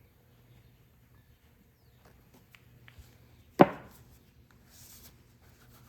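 A single sharp knock about three and a half seconds in, a hard object striking a hard surface, amid faint handling clicks and taps.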